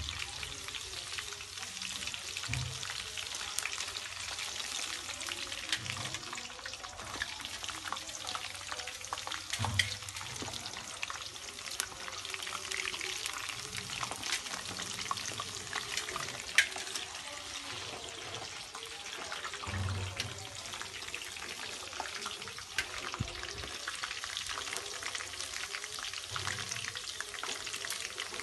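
Stuffed okra frying in hot oil in an aluminium kadai: a steady crackling sizzle, with a few sharper clicks as a wire-mesh skimmer turns the pods.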